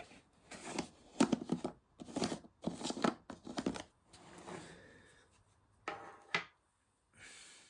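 Red plastic screw lid being twisted off a plastic jar: the threads scrape in about five short bursts as it turns. About six seconds in, two short knocks as the lid is set down on the table.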